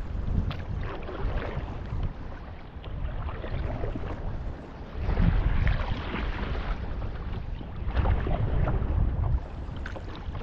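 Wind buffeting the microphone in gusts, over water splashing and lapping from the paddle strokes of a stand-up paddleboard.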